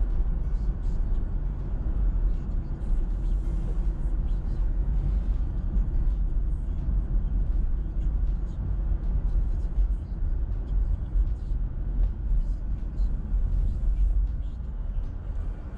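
Car driving on a city street: a steady low rumble of road and engine noise.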